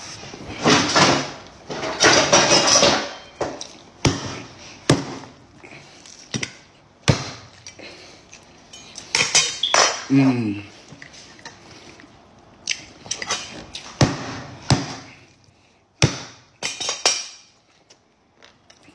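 Hands tearing and pulling apart roast pig's head meat and skin on a plate, with sharp clicks and knocks against the plate and close-up mouth and chewing noises. A short hummed "mm" comes about ten seconds in.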